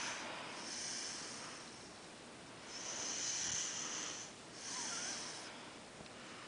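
Soft breathing close to the microphone: three long, airy breaths, the longest about three seconds in.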